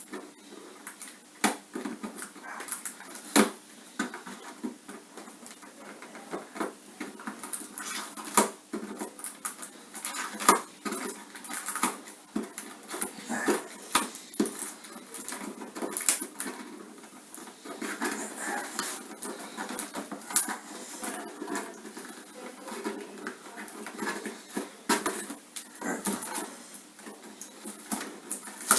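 Irregular plastic clicks, taps and rustles as a large plastic Transformers figure is worked free of the twist ties holding it in its packaging.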